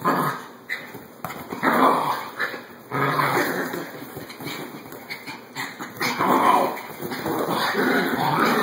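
Three small dogs, a Chinese crested, a Chihuahua and a Yorkie mix, play-fighting and growling in rough bursts every second or two.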